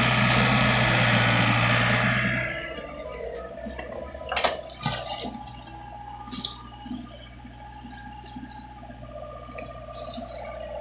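Doosan mini excavator at work: a loud rush of soil pouring from the bucket into the dump truck's bed for the first two seconds or so. Then the quieter low hum of the engine, with a sharp knock of the bucket about four seconds in and a few lighter knocks after.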